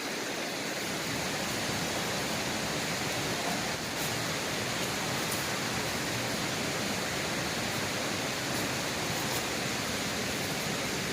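Steady rushing of flowing river water, an even hiss with a few faint high clicks.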